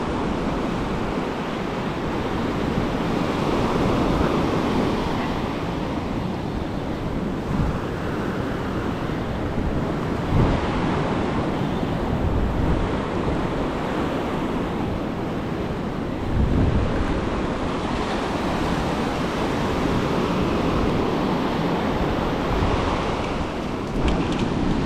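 Ocean surf washing up a sandy beach in a steady, swelling wash, with wind buffeting the microphone in a few low thumps.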